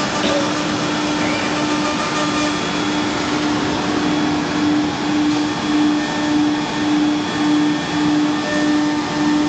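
Disc automatic-tool-change CNC router cutting a board, its spindle and dust extraction running with a steady whirring rush. A low hum pulses in and out about twice a second from about four seconds in.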